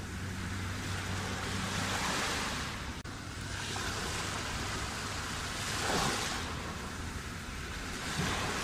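Sea waves breaking and washing on the shore, the surf swelling and easing every few seconds, with the loudest wave about six seconds in. There is a momentary drop-out about three seconds in.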